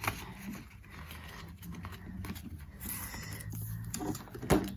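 Banknotes and a clear plastic binder pouch being handled: soft rustling and crinkling with small clicks, then one sharp snap near the end. A faint low hum runs underneath in the middle.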